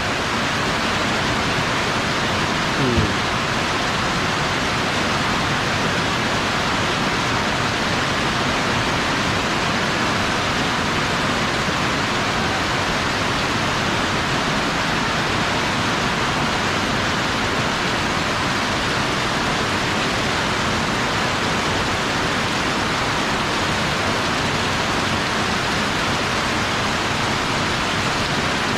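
Heavy rain pouring down steadily, a dense, even hiss. A brief falling sound cuts through about three seconds in.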